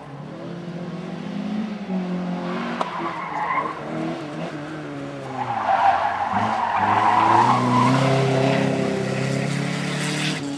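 Car driven hard on a special stage, its engine revving up and dropping back several times through gear changes, with tyres squealing through a turn from about halfway to near the end, the loudest part.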